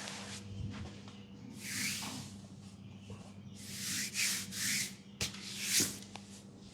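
Hands rubbing over skin in a leg massage, a series of hissing strokes: one about a second in, three close together past the middle, and the loudest near the end. A single sharp click comes just before that last stroke.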